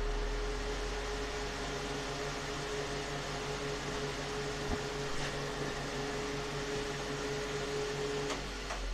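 Newly installed Broan 655 bathroom heater and exhaust fan unit running: a steady motor hum with a whine over it. The whine stops near the end, leaving the low hum for a moment.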